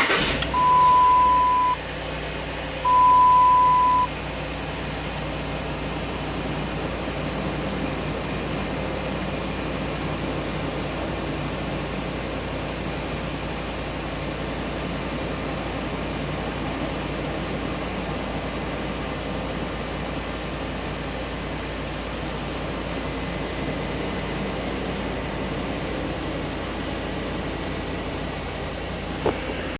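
Dodge Ram 1500's 5.7-liter Hemi V8 running steadily with the cylinder 4 misfire still present after a new spark plug and coil pack. Two loud, even beeps, each about a second long, sound in the first few seconds.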